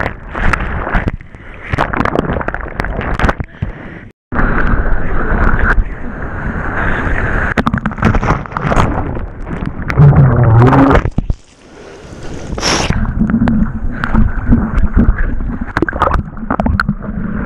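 Breaking surf and churning whitewater heard through a bodyboard-mounted GoPro that keeps going under and coming up. Underwater there is a muffled rumbling and gurgling, and above it splashing and rushing water, in irregular loud surges. The sound cuts out for a moment about four seconds in.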